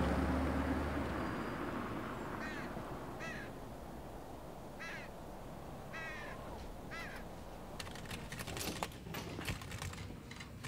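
A crow cawing about half a dozen times, each call short and falling in pitch, after a low drone fades out in the first second. From about eight seconds in, quick clicks of typing on a computer keyboard.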